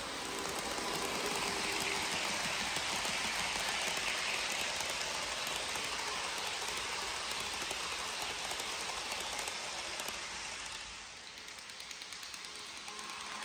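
HO scale model trains running past on double track, a steady rapid clicking rattle of wheels over the rail joints. It swells as the trains come by and falls off about eleven seconds in.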